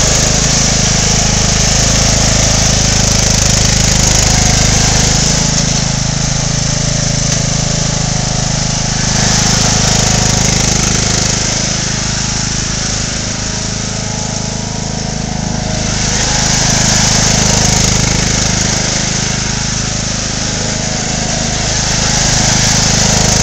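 Bolens riding lawn mower engine running steadily under way. Its level swells and fades every six or seven seconds as the mower circles.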